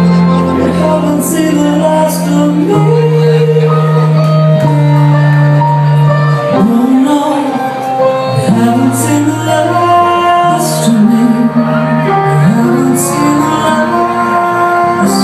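Loud recorded music played over a club sound system: a slow, dramatic ballad with a woman's voice holding long notes over a full backing.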